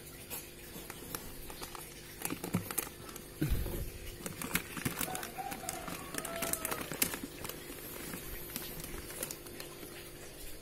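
Rustling and crinkling handling noises with scattered clicks and taps, busiest in the middle, over a steady low hum; a short whistle-like chirp sounds about halfway through.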